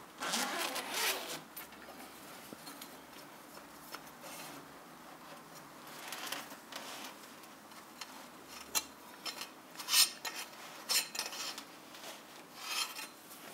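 Scraping and rustling in short bursts as a hanging mesh drying net is handled and a slab of dried pork belly (larou) inside it is moved with a metal utensil. The bursts come once at the start and then several more times toward the end.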